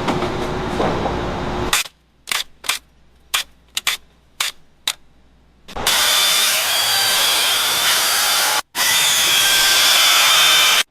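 Workshop tool sounds: a steady power tool running, then a string of about eight sharp knocks or clicks spaced irregularly, then a loud steady whirring power tool again.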